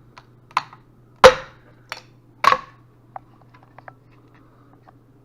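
Hard plastic knocks and clicks of a PLA 3D print being handled and set against a hard surface: four sharp knocks in the first half of the clip, the loudest about a second in, then a few lighter ticks. A low steady hum runs underneath.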